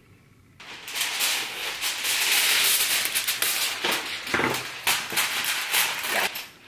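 A spice grinder crackling as seasoning is ground over the casserole, then aluminium foil crinkling as it is pressed over a glass baking dish. The crackling starts about half a second in and goes on as a dense run of quick clicks and crinkles.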